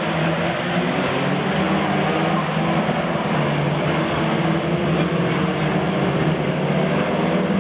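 Saloon stock car engine running at a steady pitch over a constant rushing noise, with no clear revving up or down.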